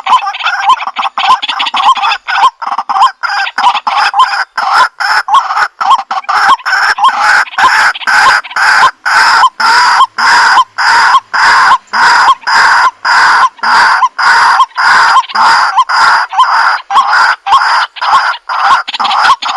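White-breasted waterhen calling: a loud, harsh call repeated without a break, about two to three calls a second.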